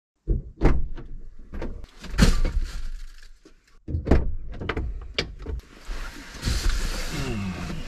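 Knocks, thumps and rattles of a person getting into a pickup truck's cab through the driver's door and handling a shotgun and gear, with rustling near the end.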